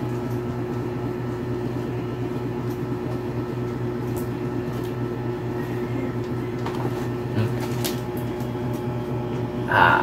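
A steady electric hum, even in level throughout. Faint rustles and small clicks of packaging being handled in a cardboard shoebox come between about six and eight seconds in.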